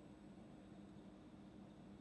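Faint steady hum of a Vaillant aroTHERM 5 kW air source heat pump running in hot water mode, with a thin high whine above it.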